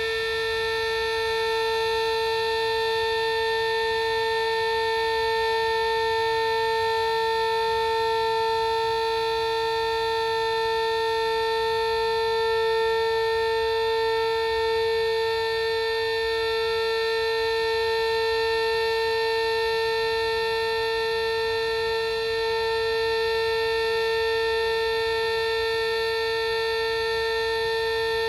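Sterling M-10 electromechanical fire siren holding one steady tone at full speed during its weekly noon test.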